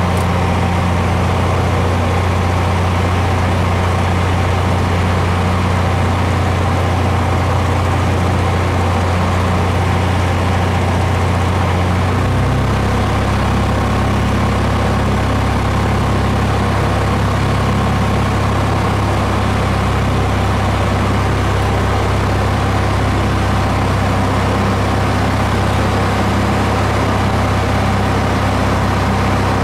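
Aircraft engine droning steadily, heard from on board, with a slight shift in engine pitch about twelve seconds in.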